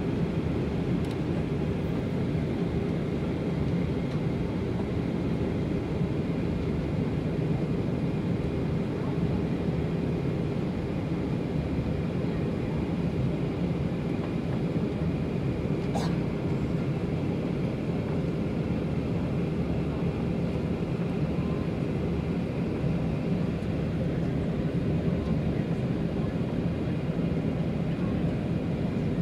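Steady jet airliner cabin noise inside a Boeing 737 on approach: a constant rush of airflow and engine drone with a few held tones. A single sharp click about 16 seconds in.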